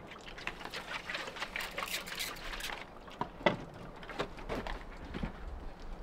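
Steel trowel scraping and working mortar against stone, a dense rasping run for the first half, then a few separate sharp knocks of trowel and stone, the loudest about three and a half seconds in.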